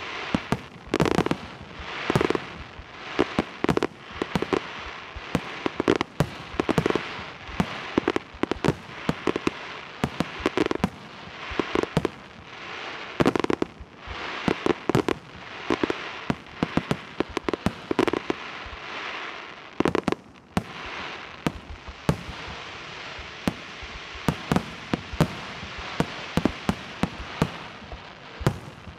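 Aerial firework shells bursting in rapid, irregular succession, sharp bangs often several a second, with a continuous crackle between them.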